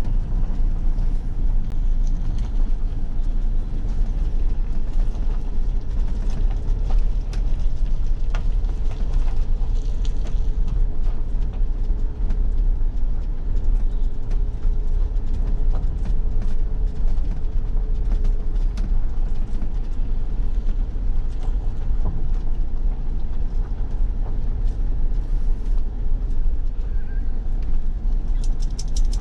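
Motorhome creeping along at low speed, heard from inside the cab: a steady low engine and road rumble with a few faint clicks.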